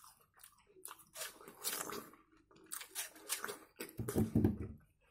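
Biting into and chewing juicy raw watermelon: wet, crunchy bites, loudest about a second in and again about three seconds in, then steady chewing.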